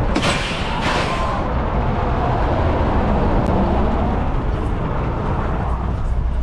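Diesel truck engine idling with a steady low rumble. A brief rush of noise comes in the first second or so, with a few light clicks later on.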